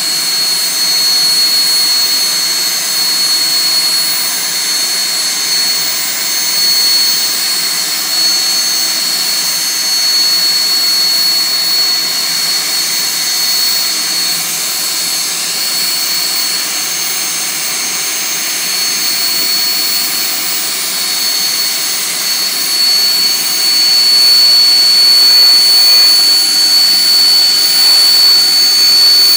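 HAL Chetak helicopter's Turbomeca Artouste turboshaft running on the ground with the rotor turning: a steady high-pitched turbine whine over a rushing noise, growing somewhat louder about two-thirds of the way through.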